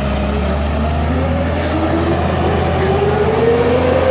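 Excavator's diesel engine running steadily under load, with a whine that climbs slowly in pitch through the second half.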